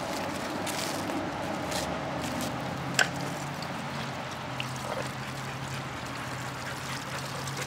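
Water running from a foot-pedal dog drinking fountain into its metal bowl, a steady trickle and spray, with one sharp click about three seconds in.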